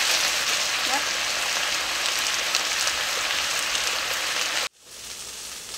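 Frozen cut okra sizzling in hot olive oil in a skillet, a steady sizzle that cuts off abruptly near the end.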